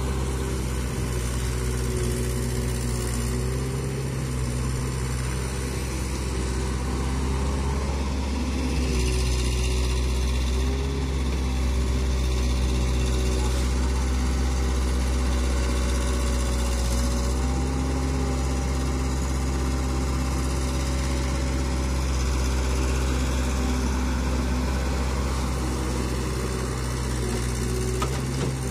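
Diesel engines of a Sonalika DI 47 RX tractor and a working excavator running steadily at idle, a low drone whose pitch shifts slightly now and then.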